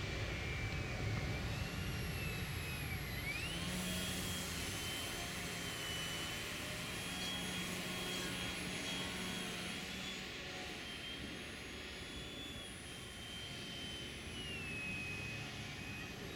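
Aeroworks SU-31 radio-controlled aerobatic model plane flying overhead: its motor and propeller give a steady whine whose pitch rises and falls as the plane manoeuvres.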